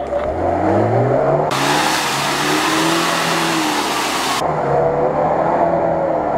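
Lada Niva 4x4 engine revving as it drives through deep mud, the pitch climbing over the first second or so and then held. From about one and a half to four and a half seconds in, a loud rushing hiss of splashing mud and water covers it, then cuts off suddenly.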